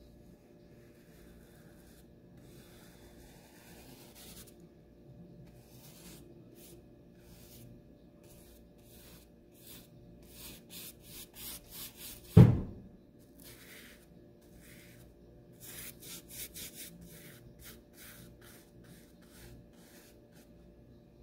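A paintbrush brushing paint onto a textured board, heard as clusters of short rubbing strokes. One loud, low thump about halfway through stands out over the strokes.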